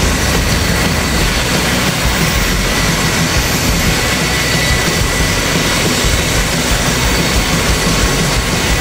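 V-22 Osprey tiltrotor running on the ground with its proprotors turning in helicopter mode: a loud, steady turbine whine over a low, throbbing beat from the rotor blades.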